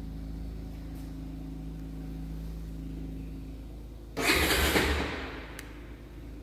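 Honda XR 250 Tornado's single-cylinder four-stroke engine idling steadily. About four seconds in it is revved once sharply, and the revs fall back over about a second.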